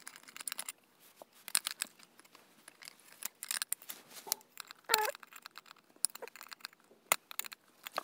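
Handling noise from an electric kettle's metal base and power connector being taken apart by hand: scattered clicks, taps and scrapes, the loudest about five seconds in and a sharp click about seven seconds in.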